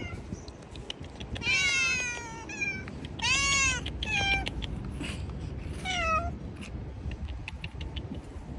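Stray cats meowing: a long meow about a second and a half in, another around three seconds, then two short ones near four and six seconds.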